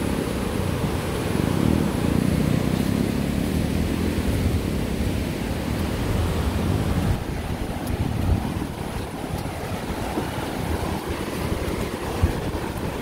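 Steady rushing of swollen floodwater from typhoon rains, easing slightly about seven seconds in.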